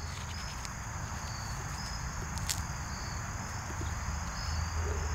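Crickets trilling steadily: a continuous high-pitched trill with short chirps repeating over it, and a single sharp click about halfway through.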